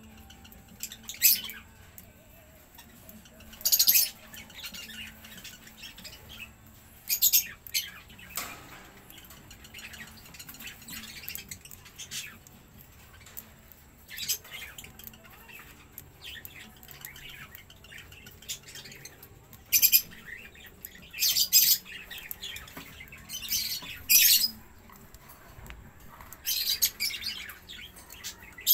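Budgerigars chattering, with short, shrill squawks every few seconds.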